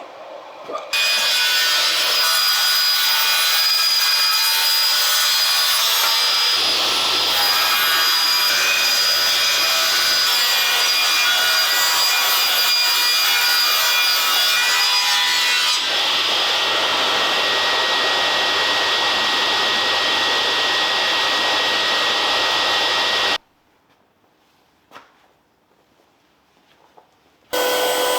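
Power woodworking tool cutting wood: a loud, steady machine noise with a fixed whine, running for over twenty seconds, then cutting off suddenly and starting again about four seconds later.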